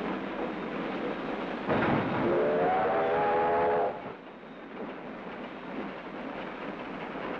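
Union Pacific 9000-class 4-12-2 steam locomotive under way, with a whistle blast about two seconds in: a chord of several tones that rises briefly, holds for under two seconds and cuts off suddenly. Steady running noise underneath.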